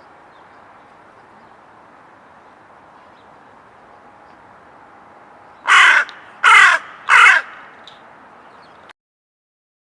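A bird giving three loud, harsh calls in quick succession about six seconds in, each falling in pitch, over faint steady background noise.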